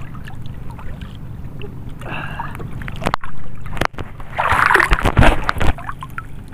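Seawater sloshing and splashing around people wading as they work a gill net by hand, with a louder burst of splashing about four and a half seconds in.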